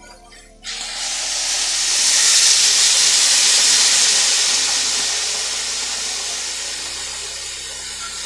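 Boiling water poured into a hot kadai of fried rice, lentils and spices, sizzling loudly as it hits the pan. The sizzle starts suddenly about a second in, is loudest over the next few seconds, then slowly dies down as the pan fills.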